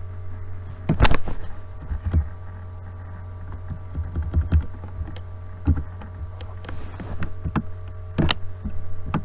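Scattered clicks of a computer keyboard and mouse, the loudest about a second in and near the end, over a steady electrical hum.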